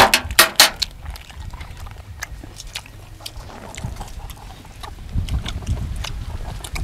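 Close-up chewing and lip-smacking of a man eating raw duck blood salad with his fingers, with a cluster of loud smacks in the first second and scattered smaller ones after.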